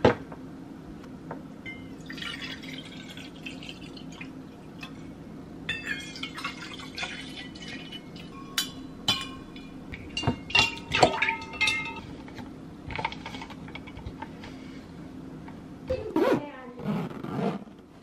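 Stainless steel food jar and insulated tumbler being handled on a kitchen counter: metal clinks with short ringing tones as lids are fitted, and liquid poured in, over a steady low hum.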